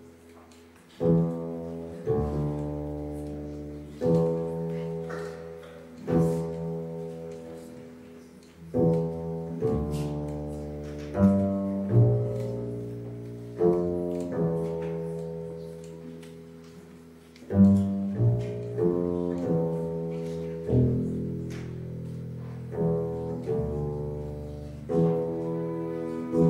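Upright double bass played pizzicato, a slow solo line of single plucked notes, each ringing and dying away before the next.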